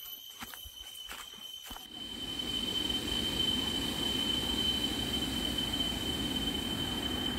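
Footsteps on the jungle trail for about two seconds, then a steady rushing noise of a river that swells over the next second and holds. A steady high insect whine runs throughout.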